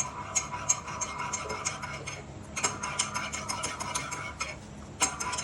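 Metal spoon stirring a tablespoon of honey into the tea, with quick clinks and scraping against the sides of the cup. It comes in three spells, with short pauses about two seconds in and near the end.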